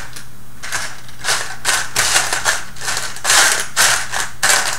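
Small plastic Robotis OLLO kit parts clattering and rattling against each other as a hand rummages through the parts box, in irregular bursts several times a second.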